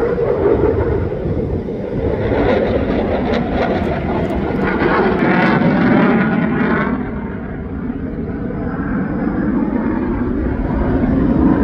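A fixed-wing aircraft flying past, a loud engine roar that eases off about two-thirds of the way through and builds again near the end.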